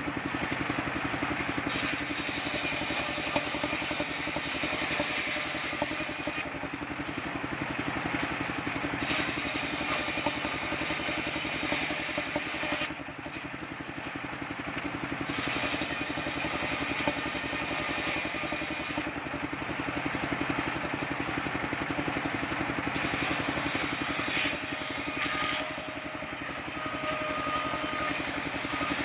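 Engine-driven mobile circular sawmill ripping waru wood boards into roof battens: the engine runs steadily under the noisy hiss of the large blade cutting through the wood. The cutting noise dips briefly twice, about halfway through and again near the end.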